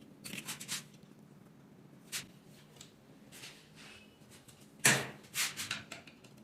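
Metal tools and engine parts knocking and clinking as they are handled during an engine rebuild: a short cluster of clinks, a single knock, then the loudest few knocks near the end.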